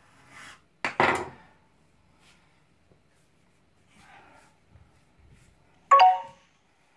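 Kitchen knife cutting through a log of pasta dough and knocking on the stone worktop about a second in, then faint rubbing of dough between the hands, and a second short, sharp sound with a brief ring near the end.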